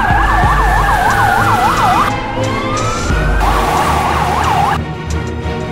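Police car sirens: a fast warbling yelp, about three cycles a second, alternating with a slow wail that falls and then rises, over a low rumble. The siren cuts off near the end.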